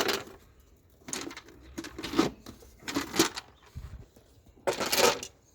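Several short scrapes and rubs, about a second apart, of plastic airbox and engine-bay parts being handled and pulled off by hand.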